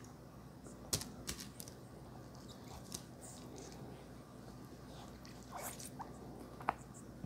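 Close-miked eating of noodles with a fork: a few sharp clicks about a second in, and a handful of small wet mouth clicks near the end.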